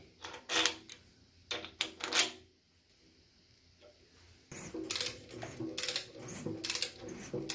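Sharp metallic clinks as a steel roller rocker arm is set onto its stud over a valve spring and a wrench is fitted to the adjusting nut. From about four and a half seconds, a rapid run of metal clicks, like a ratchet wrench being worked, that lasts to the end.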